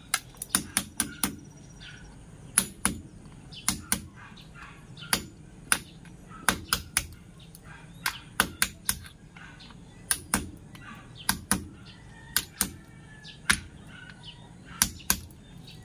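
Hammer blows chipping at a concrete hollow-block wall: sharp knocks, often in quick pairs or threes, about once a second.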